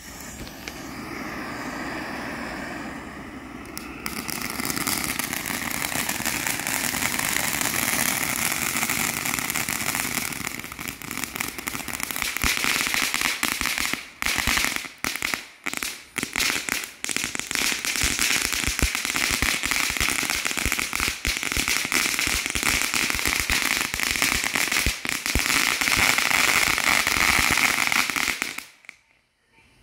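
Phantom Fireworks beer pack ground fountains burning: a steady rushing hiss of sparks that grows louder about four seconds in, joined by dense crackling from about twelve seconds on, then cutting off abruptly near the end as the fountain burns out.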